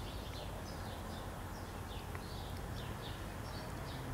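Small birds chirping faintly in the background, short quick calls several times a second, over a low steady hum that grows stronger near the end.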